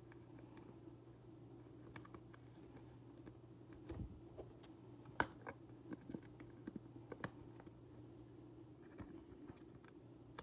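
Faint, scattered clicks and flicks of glossy trading cards being handled and sorted by hand, over a low steady hum.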